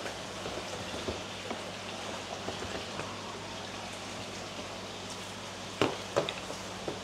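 Steady patter of falling water over a low steady hum, with two sharp knocks or splashes about six seconds in.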